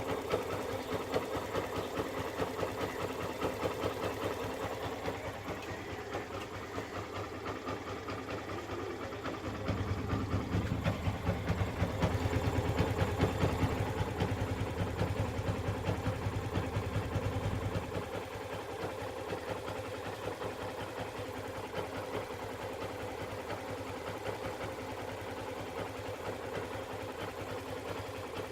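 Yamaha FZ V2.0's single-cylinder engine idling with a fast, even pulse. About a third of the way in it grows louder and deeper for roughly eight seconds, then settles back.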